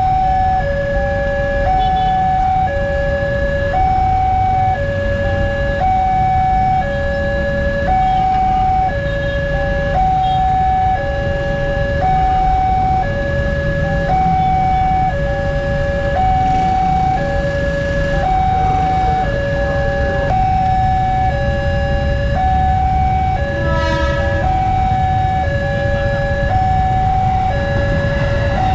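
Railway level-crossing warning alarm sounding an electronic two-tone chime that alternates between a low and a high tone about once a second, signalling an approaching train while the boom barrier comes down. A steady low rumble lies underneath.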